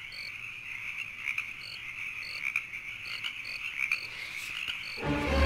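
Night-time chorus of croaking frogs with short, high, insect-like chirps repeating every half second or so. Music with a heavy beat comes in near the end.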